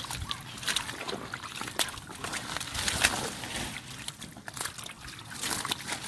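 Shallow water sloshing and splashing in irregular bursts, with scattered clicks, as hands work through it.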